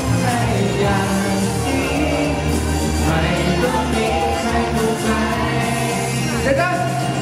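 Male singer singing a Thai pop song live into a handheld microphone over backing music.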